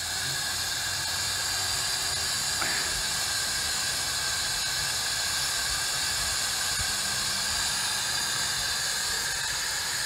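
Steady hiss of steam escaping from a wood-fired rocket stove steam boiler.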